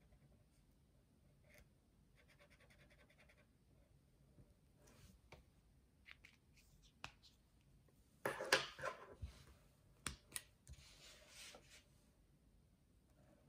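Faint scratching of a marker pen tip on paper in quick strokes. This is followed by clicks and a louder rustling scrape about eight seconds in as pens and the paper sheet are handled and moved.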